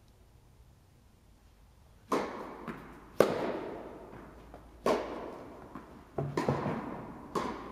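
Tennis ball being struck by rackets and bouncing on the court during a rally: a series of sharp pops starting about two seconds in, roughly one to one and a half seconds apart, each echoing in the large indoor tennis hall.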